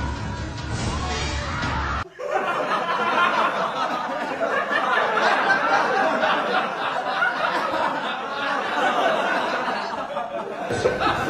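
Crowd laughing and chuckling for most of the clip. Background music with a bass line plays for the first two seconds, cuts off suddenly, and comes back near the end.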